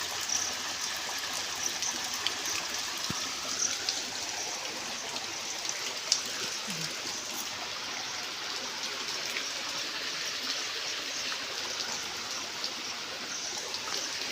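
Rainwater runoff flowing steadily through a village channel, a continuous sound of running water.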